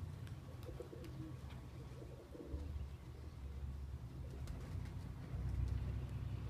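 Pigeons cooing, two short bouts in the first half, over a steady low rumble that grows louder about two and a half seconds in and again near the end.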